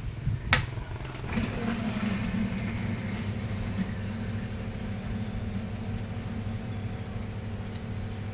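A sharp click, then a motor starts up and runs with a steady, even hum, stopping near the end.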